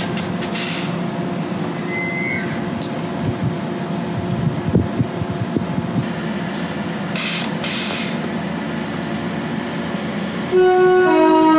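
A train running through the station with steady mechanical noise, then near the end sounding its two-tone horn, a higher note stepping down to a lower one.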